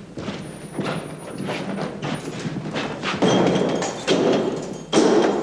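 A series of irregular thumps and knocks, roughly two a second, heavier about three seconds in and again near the end.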